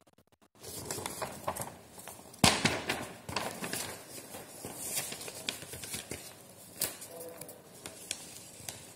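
Sheet of paper being folded up by hand: rustling and crinkling with sharp crackles, the loudest about two and a half seconds in.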